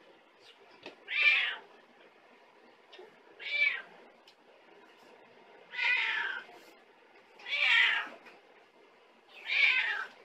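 Calico cat meowing repeatedly: five drawn-out meows about two seconds apart. These are attention-seeking calls from a cat wanting affection.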